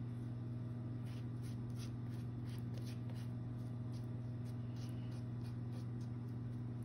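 Small plastic spatula stirring and scraping a wet paste of crushed soft pastel and isopropyl alcohol in a small plastic jar, in soft, irregular scratchy strokes. Under it runs a steady low electrical hum.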